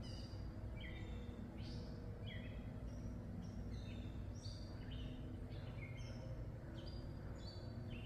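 Wild birds chirping, short high calls about twice a second, over a steady low background rumble.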